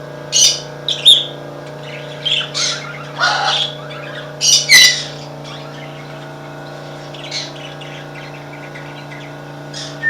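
Parakeets chirping in short, high calls: a cluster of them in the first five seconds, then a single call about seven seconds in, over a steady low hum.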